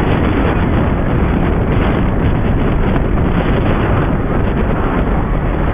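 Wind buffeting the microphone: a loud, steady, unbroken rumbling noise.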